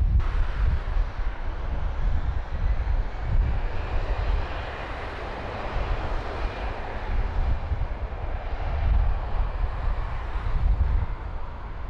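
An airliner passing, its engine noise swelling to a peak about halfway through and then fading, over a gusty low rumble.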